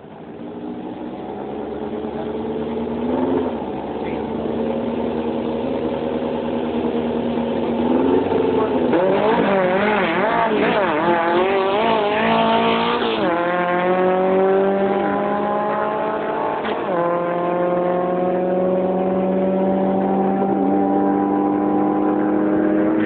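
Volkswagen Beetle drag car's engine revving hard under acceleration. Its pitch wavers, then climbs and drops back at three gear changes in the second half.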